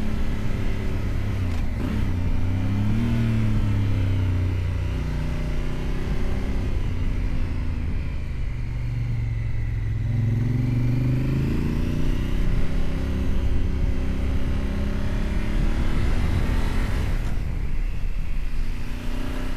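Honda Africa Twin motorcycle engine under way, its revs climbing and falling several times as the rider works the throttle and gears.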